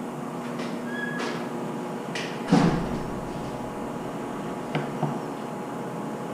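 A few knocks and clicks, the loudest a heavy thump about two and a half seconds in, over a steady low hum.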